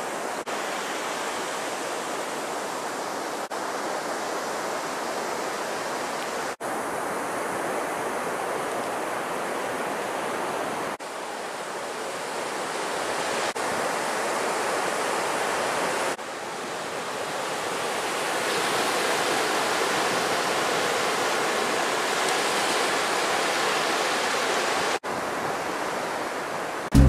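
Sea surf breaking and washing onto a sandy beach, a steady rushing noise, briefly cut off several times where clips are joined.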